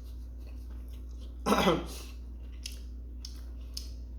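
A man gives a single short cough, clearing his throat, about a second and a half in, with a few faint clicks around it.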